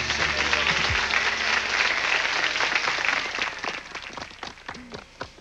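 Audience applauding at the end of a song, as the last held band note dies away about a second in. The clapping thins out and fades near the end.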